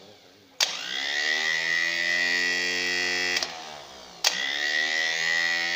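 A Paris-Rhône electric starter motor run free on the bench with no load, twice. Each run starts with a sharp click as current is applied, then the motor spins up with a rising whine and runs at a steady high pitch. The first run is cut at about three and a half seconds and winds down with a falling whine; the second click and spin-up come soon after. The motor is freshly fitted with a new field winding and runs freely.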